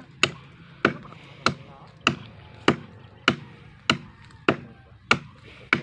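Bolo knife chopping into the base of a small standing tree trunk: sharp blade-on-wood strikes at an even pace, about ten blows, a little under two a second.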